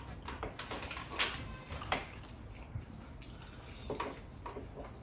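Quiet eating sounds: scattered short, wet clicks and smacks of chewing, the two loudest between one and two seconds in.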